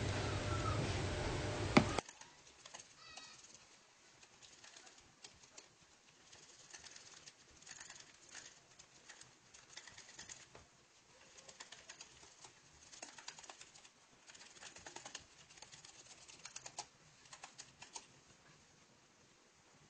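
Faint, quick clicking and scraping of a whisk beating softened butter in a bowl, coming in bursts with short pauses: butter being creamed by hand. A louder noise fills the first two seconds and cuts off with a sharp click.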